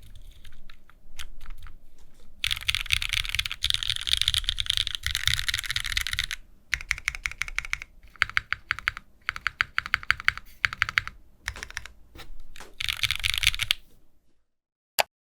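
Typing on a Wilba.Tech Salvation custom mechanical keyboard with a spring leaf mount in a tray case: fast runs of keystrokes in bursts separated by short pauses. The typing stops about a second before the end, followed by one short click.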